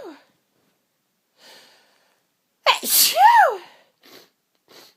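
A woman sneezing once, loudly, about three seconds in. The sneeze is a sharp burst carrying a voiced cry that rises and then falls in pitch. A faint breath comes before it, and two short faint breaths follow. The tail of an earlier sneeze dies away at the very start.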